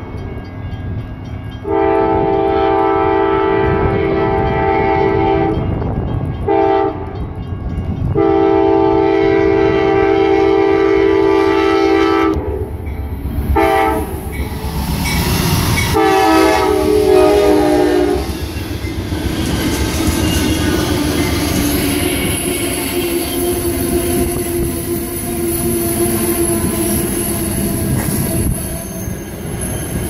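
Amtrak GE Genesis P42DC diesel locomotive's air horn sounding a series of long and short blasts as the train approaches. Then the passenger cars roll past with rail-joint clatter and some squealing from the wheels.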